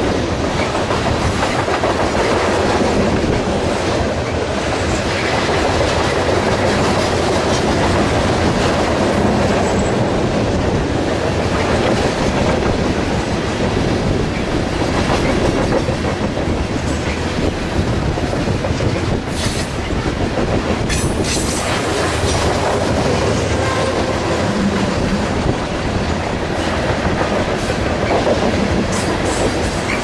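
Loaded coal cars of a long freight train rolling steadily past: a continuous rumble of steel wheels on rail with rhythmic clicking over the rail joints.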